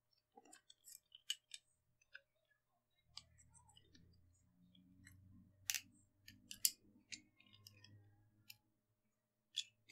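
A small screwdriver tightening a tiny screw into a metal scale-model wheel and brake assembly: faint scattered clicks and scrapes of metal parts being handled. A faint low rumble runs from about three seconds in to near the end.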